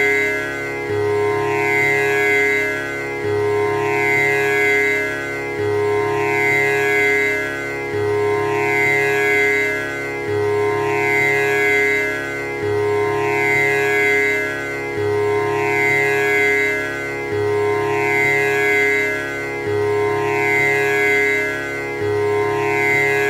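Tanpura drone: its strings are plucked in a steady repeating cycle about every two and a half seconds, each pluck ringing into one continuous drone.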